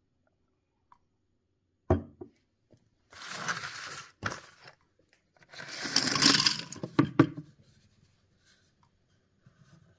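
Torn cardboard sleeve of a Nespresso capsule pack being handled: a knock about two seconds in, then two stretches of paper crinkling and tearing, with sharp clicks around seven seconds in.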